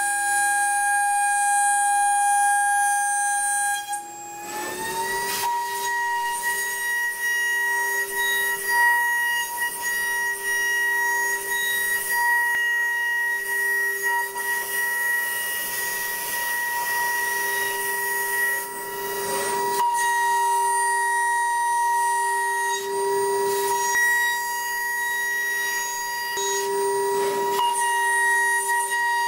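2.0 kW Jäger high-frequency spindle of a DATRON M8Cube CNC mill whining steadily while milling and engraving an aluminium panel, with a light cutting hiss. About four seconds in, the whine dips briefly and rises to a slightly higher steady pitch as the spindle speed changes.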